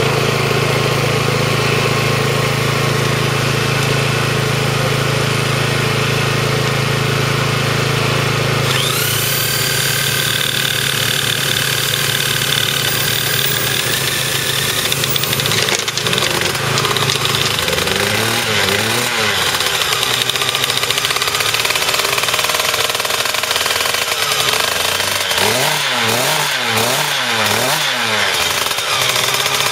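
A small petrol generator runs steadily. About nine seconds in, an electric drill whines up to speed, pressed onto a Piaggio Ciao moped's engine to spin it over; the whine cuts off suddenly about seven seconds later. After that, a small engine's speed rises and falls over and over.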